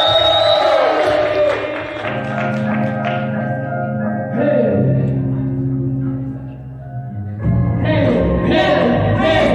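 Live band music with singing. A sung note opens, then the music thins to held chords with a brief vocal slide. The full beat comes back in about three-quarters of the way through.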